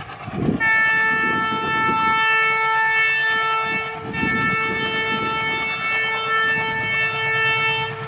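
WDG-3A ALCO diesel locomotive sounding its horn in two long blasts, about three and a half seconds each with a brief break between them. Under the horn, the engine chugs with a low, pulsing beat as it hauls the train.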